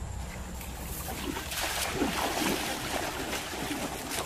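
Shallow river water splashing and sloshing irregularly around a person's legs as she wades through it.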